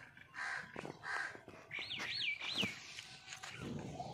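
Birds calling: short calls repeated a couple of times a second, and a whistled call that rises and falls three times about two seconds in.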